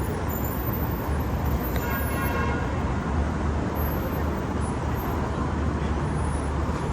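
Steady road traffic noise with a low rumble of passing vehicles. A faint higher tone comes in briefly about two seconds in.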